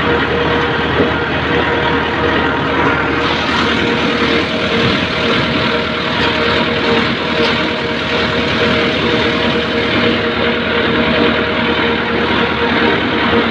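Diesel tractor engine running steadily while it pulls and drives a boom crop sprayer, heard close up from the driver's seat. A higher hiss joins about three seconds in.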